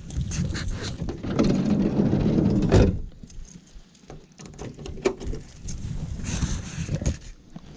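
Hunting gear being handled, rattling and rustling, with a loud thump about three seconds in, followed by scattered clicks and knocks.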